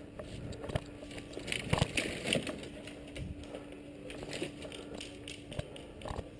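Footsteps of a player on the move: irregular crunches and knocks, loudest about two seconds in, over a faint steady hum.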